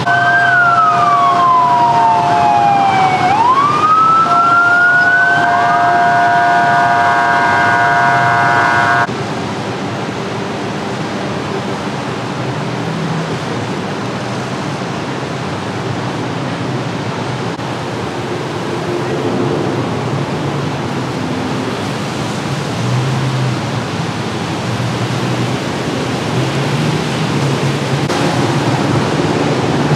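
Emergency vehicle siren sweeping down and back up in a slow wail, then holding a steady tone, cut off abruptly about nine seconds in. After it comes a steady hiss of city traffic and street noise.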